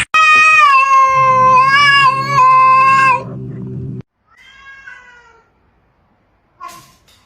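A cat yowling in one long, loud, drawn-out call lasting about three seconds, with a low steady drone beneath its second half. A shorter, fainter meow follows about four seconds in.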